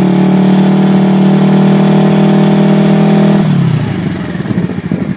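1979 Suzuki GS425L's air-cooled parallel-twin engine held at a steady high rev of about 5,000 rpm, then dropping back to idle about three and a half seconds in. The revs load the stator for an AC output test across its white-green and white-blue phases, which reads just over 65 volts: the stator checks out.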